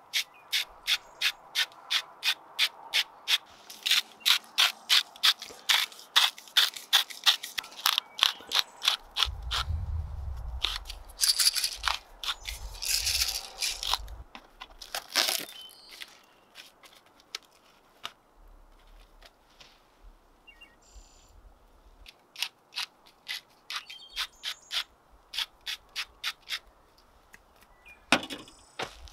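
Hand-twisted salt and pepper mills grinding, a fast run of ratcheting clicks about four a second for the first eight seconds or so, then shorter, more scattered runs of clicks later.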